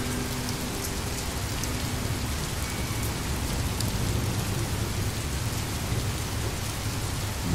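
Steady rain falling, an even hiss with a low rumble beneath it and a few faint drip-like ticks.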